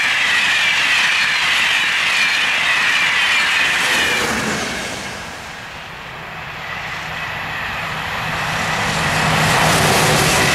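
A passenger train rushing past at speed, a loud rolling rush of wheels on rail with falling tones, that dies away about four seconds in. After a short lull an electric locomotive hauling freight wagons approaches with a low hum, and its passing grows loud near the end.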